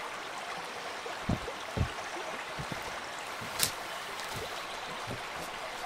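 Steady rush of flowing stream water, with a few low thuds of footsteps on the forest floor early on and one short sharp snap about three and a half seconds in.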